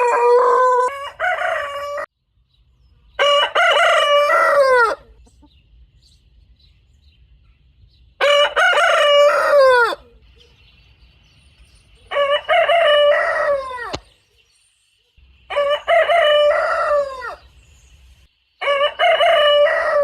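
Rooster crowing, cock-a-doodle-doo, about six times in a row, each crow lasting a second or two with short pauses between. The first crow is already ending as the sound begins, and the last is still going at the end.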